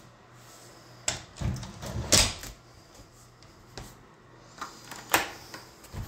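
Door lock hardware being handled: a run of sharp metallic clicks and knocks, loudest in a cluster about one to two and a half seconds in, with another sharp click about five seconds in.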